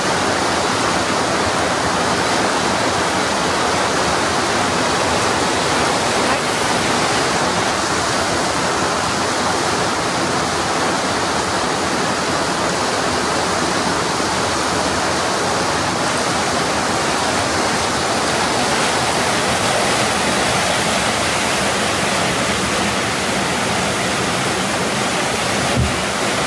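Whitewater river rapids rushing loudly and steadily.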